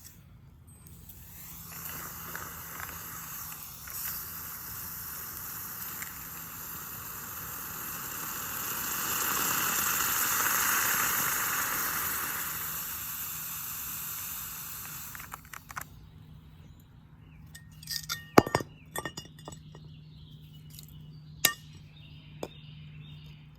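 A steady hiss that swells for about fourteen seconds and then cuts off, followed by a scatter of sharp clinks, the two loudest about three seconds apart, over a low steady hum.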